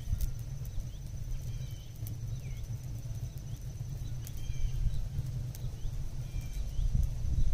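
Wood fire crackling in an open stove firebox: scattered sharp pops and snaps, about one every half second to a second, over a steady low rumble.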